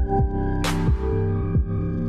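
Electronic background music with a steady beat of low thuds about every two-thirds of a second, over sustained synth tones, with a bright crash about two-thirds of a second in.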